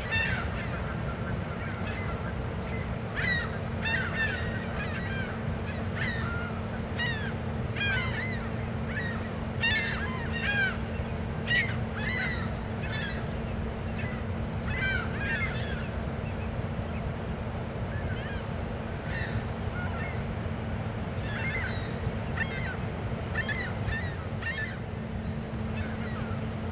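Birds calling over and over in short, arching calls, dense for the first half and fewer later, over a steady low drone.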